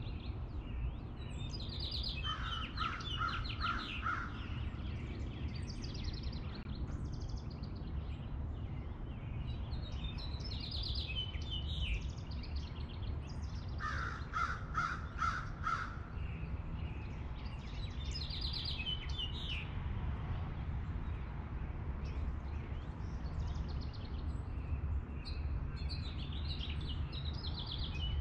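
A crow cawing in two short runs of about four caws, a few seconds in and again about halfway, with songbirds singing higher up and a steady low background rumble.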